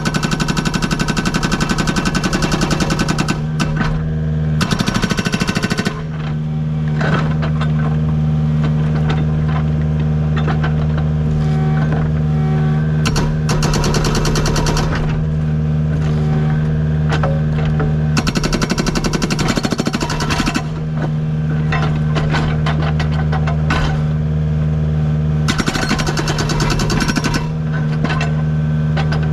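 Agrotk 680 hydraulic breaker hammer on a Kubota U55 mini excavator pounding rock in several bursts of rapid blows, a few seconds each, over the excavator's diesel engine running steadily.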